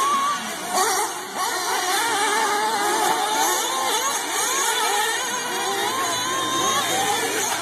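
Several nitro-powered radio-controlled cars running together, their small glow-fuel engines revving at high pitch, each rising and falling as the cars accelerate and back off.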